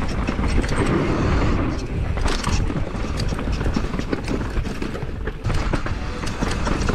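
Downhill mountain bike clattering over rocks at speed: a dense run of sharp knocks and rattles from tyres striking stones and the bike shaking, over a steady low rumble of wind on the helmet camera's microphone.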